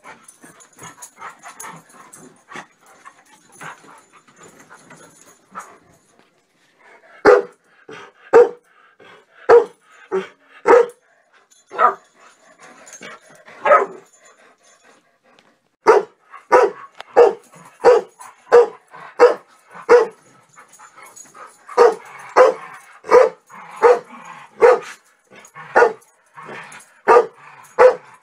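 Dogs play-barking while wrestling on a bed. After some quieter scuffling, sharp, loud barks start about seven seconds in and come roughly one a second, with brief pauses, to the end.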